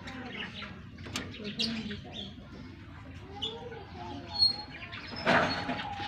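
Lovebirds chirping with short, sharp calls, with a louder harsh burst of sound a little past five seconds in.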